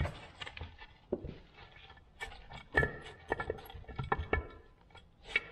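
Steel shaft being worked out of a gear in a Muncie four-speed transmission's aluminium case, with loose needle roller bearings spilling out and clinking. An irregular run of sharp metallic clicks and taps, some ringing briefly, busiest in the middle.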